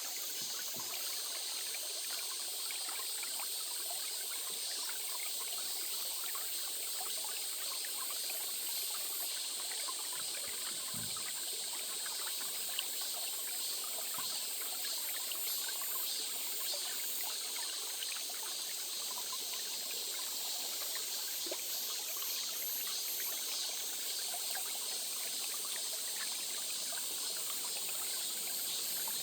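Small stream trickling and babbling steadily over stones.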